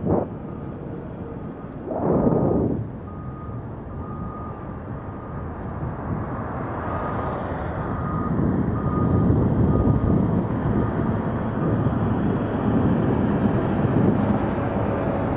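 A construction vehicle's reversing alarm beeps in a regular series of short tones. Under it are the rush of wind on the microphone and passing road traffic, with a brief swell about two seconds in.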